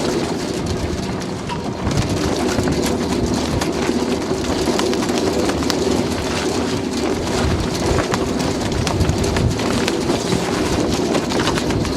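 Strong wind buffeting a loose clip-on microphone: a steady loud rushing with a low hum, full of small knocks and rustles as the mic rubs and taps.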